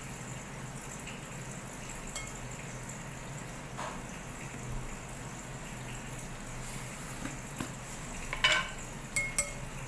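Light clicks and taps of spoons against a glass mixing bowl over a steady faint hiss, with a few sharper clinks close together near the end.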